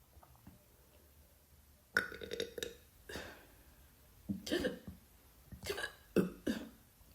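A woman burping: a string of about five short, gurgly burps, starting about two seconds in.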